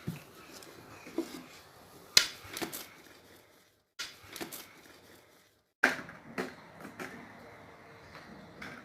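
Scattered sharp clicks and knocks of small items being handled, with the sound cutting out completely twice for a moment.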